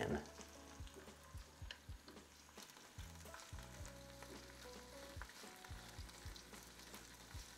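Faint sizzling of fresh spinach wilting in hot olive oil in a nonstick frying pan, with scattered light clicks as leaves are dropped in and turned with a wooden spoon.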